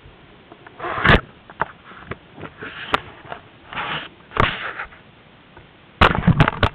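Camera handling noise: clothing brushing and rubbing against the microphone in short rustling bursts, with a sharp knock about a second in and a cluster of louder knocks and rustling near the end.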